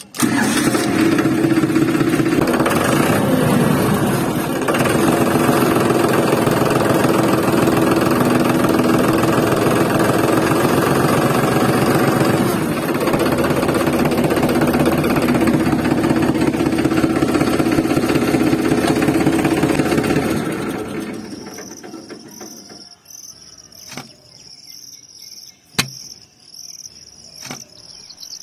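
Small DC motor of a toy tractor's water pump running steadily, then fading out after about twenty seconds. Quieter outdoor background follows, with evenly repeated high chirps and a few sharp taps near the end.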